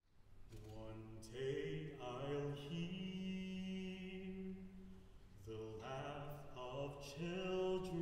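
Mixed chamber choir singing a cappella in quiet sustained chords, in two phrases with a short break about five seconds in.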